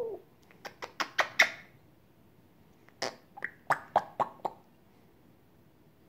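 African grey parrot making quick clicking and popping sounds: a run of about half a dozen sharp pops starting about half a second in, then another run of about half a dozen about three seconds in.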